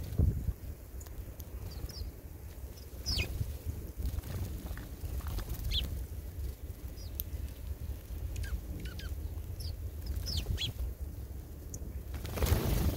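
Birds chirping in short, high, downward-sliding calls scattered throughout, over a steady low rumble, with a brief louder rustling burst near the end.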